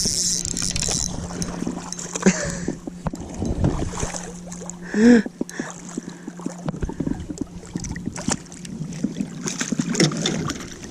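A hooked bass splashing at the surface as it is brought in, with many short clicks and knocks of rod, reel and handling.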